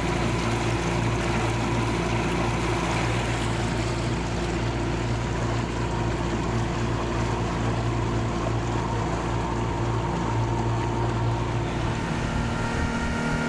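Outboard motor running steadily at speed on a small boat, its hum holding one even pitch, with the rush of water along the hull.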